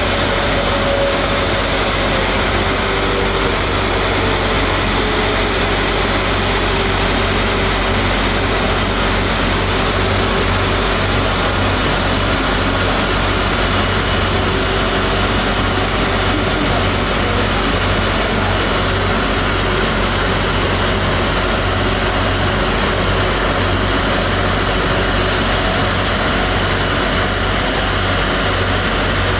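Airbus Beluga XL's two Rolls-Royce Trent 700 turbofans running at low taxi power as the aircraft taxis, a steady jet whine over a rumble, with one tone falling slightly in the first few seconds.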